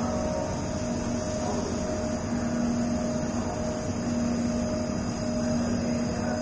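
Steady drone of running machinery with a constant hum through it.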